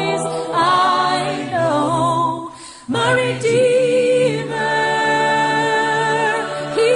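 A song playing: sung vocals with layered harmonies holding long notes with vibrato, dropping away briefly near the middle before the singing resumes.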